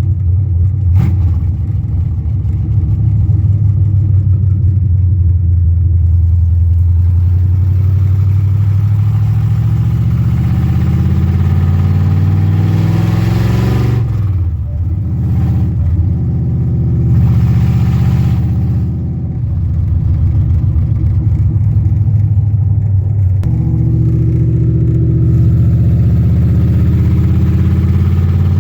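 Ford 351 Windsor V8 with stainless long-tube headers pulling a vehicle on the road. It runs steadily, then climbs in pitch under throttle and falls away briefly twice midway at gear changes, before settling into a steady run.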